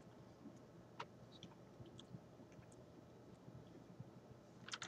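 Near silence: room tone with a few faint, short clicks, the clearest about a second in.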